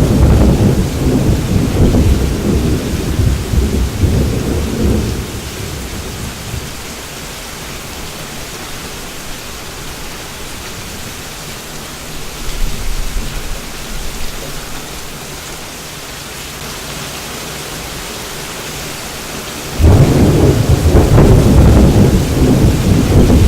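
Thunderstorm sound effect: steady rain hiss with loud rolling rumbles of thunder. One rumble fades out about five seconds in, a fainter one comes around the middle, and another loud one starts near the end.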